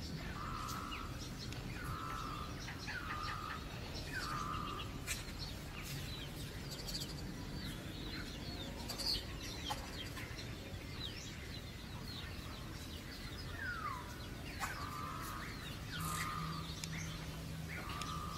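Animal calls: a short call repeated about once a second in two runs, one near the start and one near the end, with scattered high bird chirps between.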